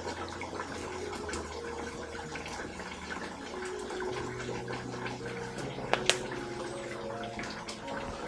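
Chicken curry gravy bubbling in a pot, a steady wet crackle of many small pops, with one sharp click about six seconds in.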